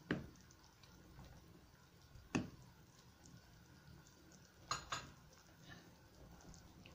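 A few light, sharp clicks over a faint steady hiss: one about two seconds in and a quick pair near five seconds, with fainter ticks between.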